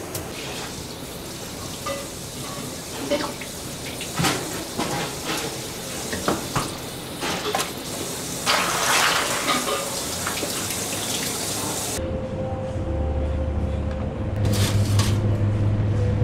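Running water with scattered knocks and clatter of kitchen work as eels are filleted and the wet fillets handled. About three-quarters of the way through the sound changes to a steady low hum with a few taps.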